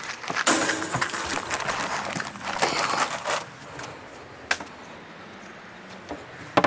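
Rustling and handling noise as a takeout bag and foam drink cup are set down on a doorstep, with a sharp click about four and a half seconds in, then quieter.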